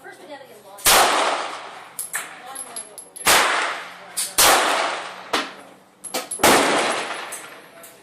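Polish P35 9mm pistol fired four times at an uneven pace, each shot trailing off in a short echo. Fainter sharp clicks come between the shots.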